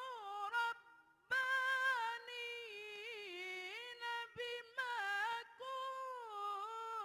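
A man reciting the Quran in the melodic mujawwad style, with long held notes that waver and bend in ornaments. He pauses briefly for breath about a second in.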